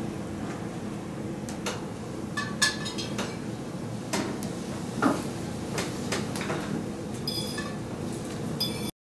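Fork and plates clinking and scraping on a table: scattered light clicks, with a few ringing clinks of dishware about two and a half seconds in and again near the end, over a steady low hum. The sound cuts off suddenly just before the end.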